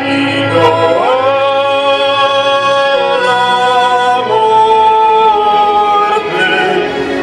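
A solo voice singing long, held notes with vibrato over instrumental accompaniment, sliding up into a sustained note about a second in.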